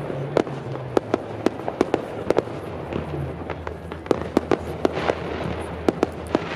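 Aerial fireworks going off in quick, irregular succession: sharp bangs, roughly two to three a second, over a continuous background of crackle and rumble.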